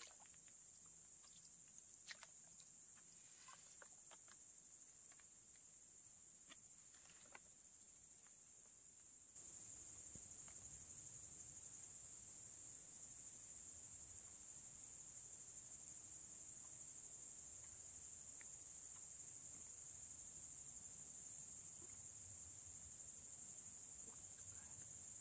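Steady high-pitched chorus of singing insects, which gets louder about nine seconds in. A few faint clicks and ticks come in the first few seconds.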